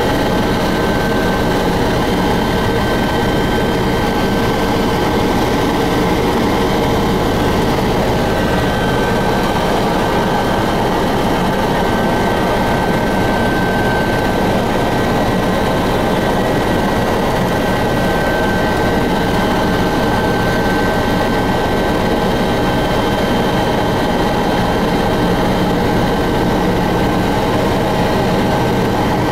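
Helicopter in flight heard from inside the cabin: a loud, steady drone of engine and rotor with a high whine held on steady pitches.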